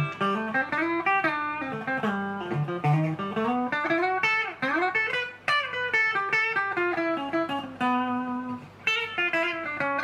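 Junior by K-Van L200 electric guitar on its bridge pickup, played clean through an amplifier: a melodic line of single notes with bends and slides.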